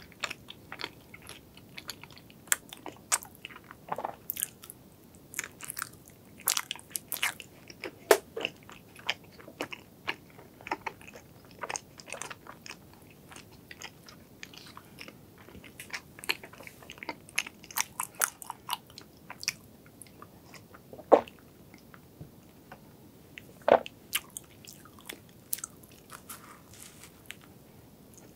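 A person chewing soft dessert close to the microphone: a steady run of moist mouth clicks and smacks, with a few louder clicks standing out.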